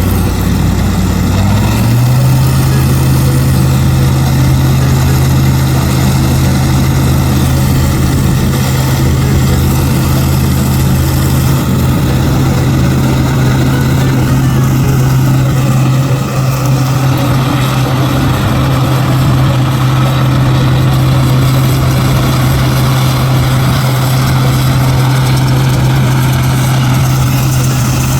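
Combine harvester engine running loud and steady, with a pitch that steps up once about two seconds in and then holds at the higher speed.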